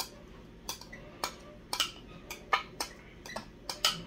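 A utensil clicking and scraping against the sauce container while sauce is scooped out and spread on a sub roll: about ten short sharp clicks at uneven intervals, a few close together near the end.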